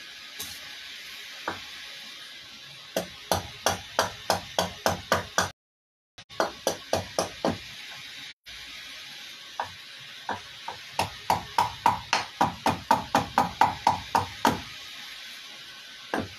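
Hatchet chopping into a wooden cup blank on a stump chopping block. It strikes quickly and evenly in runs of several blows, about four a second, with short pauses between the runs, as the blank is roughed out.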